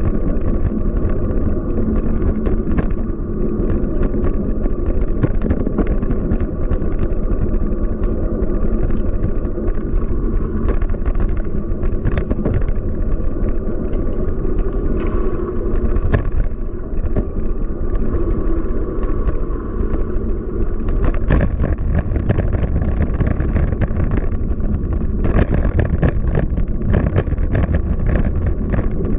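Steady wind and road rumble from a bicycle riding through city streets, with frequent small clicks and rattles, busier near the end.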